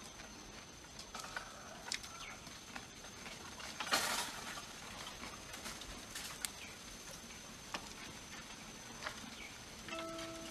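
Eating sounds: scattered clicks and crackles of cooked shrimp being peeled by hand and chewed, with a louder crackle about four seconds in. A faint steady high whine sits behind, and a short pitched tone sounds near the end.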